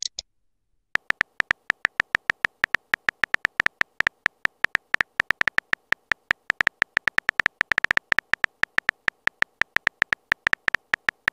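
Keyboard typing sound effect of a texting-story app: a quick, even run of short pitched clicks, about six a second, one per letter appearing in the message box.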